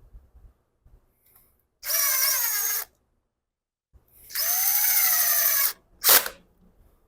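Cordless drill/driver running screws in, two runs of a whining motor whose pitch sags under load, the second one longer, followed by a short sharp burst near the end.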